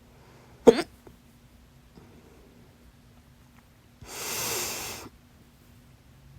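A single loud, sharp hiccup about half a second in, followed a few seconds later by an audible breath lasting about a second.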